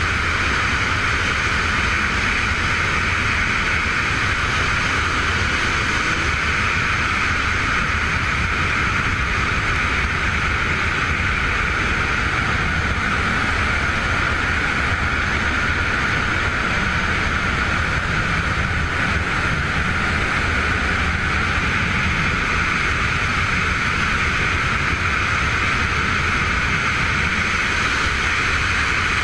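Steady rushing noise with a low rumble underneath, level and unchanging, like a constant drone or wind.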